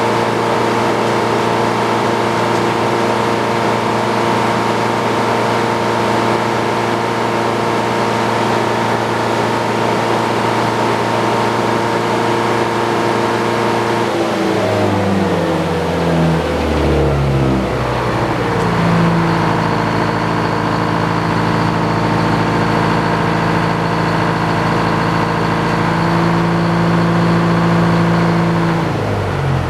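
Sawmill engine running steadily at high speed, then slowing about halfway through to a lower steady speed, and slowing again right at the end.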